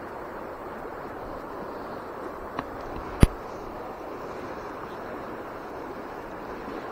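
Steady outdoor wind and river noise, with a sharp click just after three seconds in and a fainter one just before it, from hands handling the tenkara rod and its line holder.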